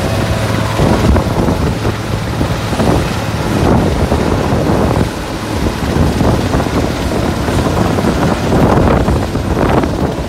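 Sikorsky S-61A twin-turbine helicopter hovering low and close, its engines and five-blade main rotor running loud and steady, with rotor wash buffeting the microphone.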